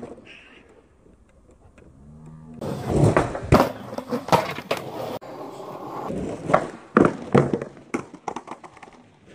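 Skateboard wheels rolling on pavement, with the deck clacking and scraping against a concrete ledge and the ground in a string of sharp knocks. The first couple of seconds are fairly quiet before the knocks begin.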